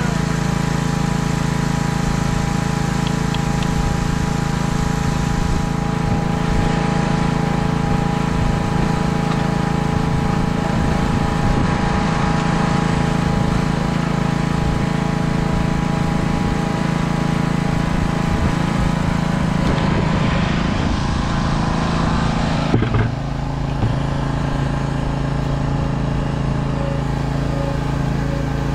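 An engine running steadily at a constant speed, a continuous drone with a fixed pitch; its tone shifts abruptly about 23 seconds in.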